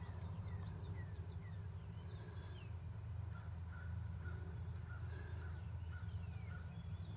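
Birds chirping, a string of short falling chirps a second or so apart, over a steady low hum.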